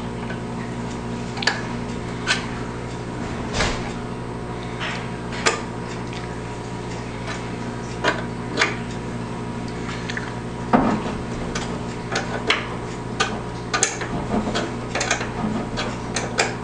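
Irregular metal clicks and clinks of a wrench working the nuts on a snow cutter's U-bolt as they are tightened, over a steady low hum.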